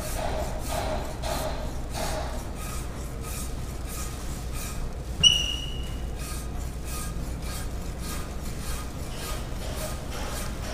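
Metal rasp scraping a plaster positive model in quick repeated strokes, shaving off plaster to reduce the model's circumference. About five seconds in, a single sharp metallic clink rings briefly.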